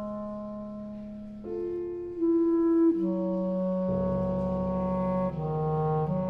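Clarinet playing slow, long-held notes with a prepared Steinway grand piano, the pitch changing every second or so. A deeper low sound joins about four seconds in.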